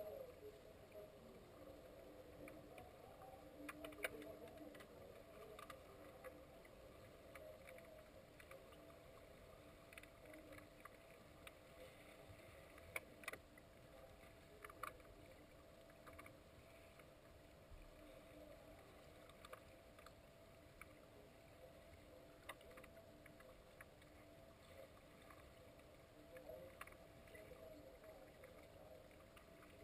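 Faint underwater ambience of a swimming pool picked up by a submerged camera: a steady low hum with a soft hiss, broken by scattered faint clicks and taps, a little stronger around four seconds in and again near the middle.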